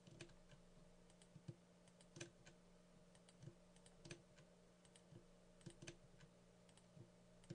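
Faint, scattered clicks of a computer mouse and keyboard keys, about one a second, as vertices are selected and joined with Shift and F, over a faint steady hum.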